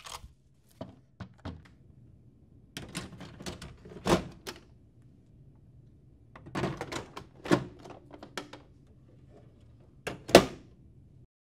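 Hard plastic clicks and knocks as a laser-printer imaging unit is handled and slid into a Lexmark printer, with sharper snaps about four and seven and a half seconds in. Near the end the printer's front door is pushed shut with a loud thunk.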